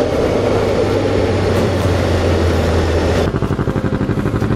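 Motorcycle engine running steadily while riding, with wind rush over the helmet camera. About three seconds in it changes abruptly to a motorcycle engine idling with a quick, even pulsing beat.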